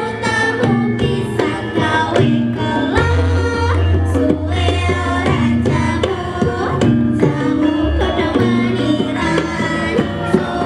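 Javanese gamelan ensemble playing: bronze metallophones ring out repeated melodic notes over hand-drum strokes, with a long, low, booming gong-like tone starting about three seconds in.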